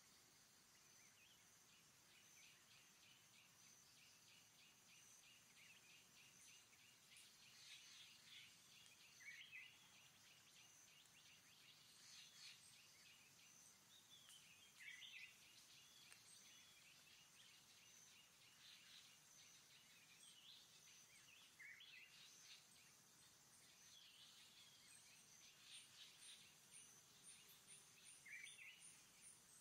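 Faint bird and insect ambience: a bird's downward-sweeping calls come every few seconds over a steady high-pitched insect drone, and a fast pulsing insect trill starts near the end.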